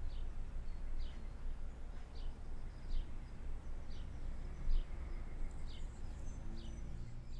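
Outdoor ambience: a steady low rumble with a short, high, falling chirp repeating about once a second.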